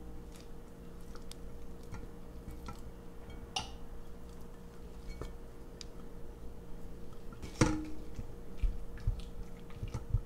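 A metal measuring spoon and silicone spatula scraping and knocking against a stainless steel mixing bowl as solid coconut oil is scraped into melted chocolate and stirred. Small scattered clicks, with a sharper clink that rings briefly about three-quarters of the way through.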